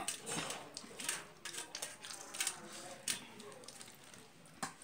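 A person eating rice by hand from a steel plate: wet chewing and lip smacks, with fingers squishing and mixing rice against the plate, in many irregular short clicks and smacks.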